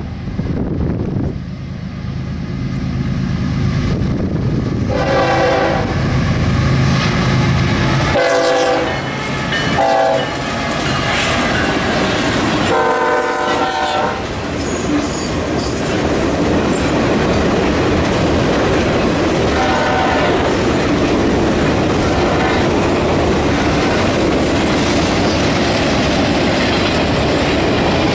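Norfolk Southern diesel freight locomotive passing with its engine rumbling while it sounds its horn long, long, short, long: the grade-crossing signal. After that, the loaded train of freight cars rolls by with a steady rumble of wheels on rail.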